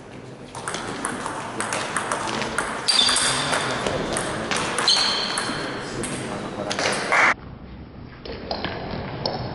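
Table tennis rally: the ball clicks sharply off the bats and the table in a quick back-and-forth. A couple of short, high squeaks come in between.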